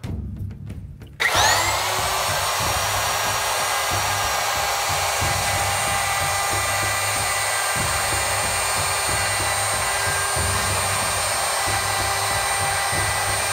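Electric router starting up about a second in, its whine rising briefly and then holding steady at full speed as a 3/8-inch round-over bit cuts along grooves in a wooden shield face. A few light taps come before the motor starts.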